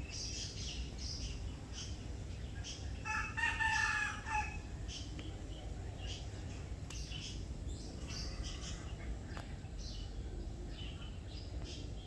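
A rooster crows once about three seconds in, lasting about a second and a half. Small birds chirp now and then over a steady low rumble.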